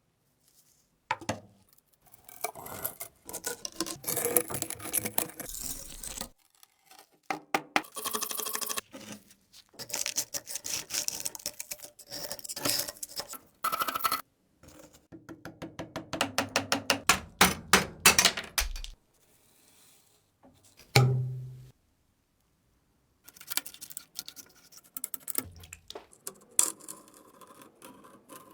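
Metal clinking and rubbing from hand work on rusty metal, in short stretches that stop abruptly, with a quick run of sharp clicks about two-thirds of the way through.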